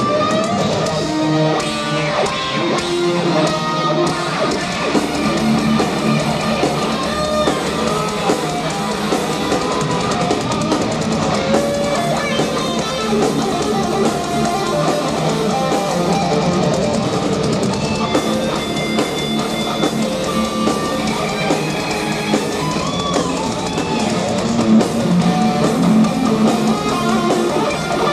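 Thrash metal band playing live, loud and without a break: distorted electric guitars over a driving drum kit.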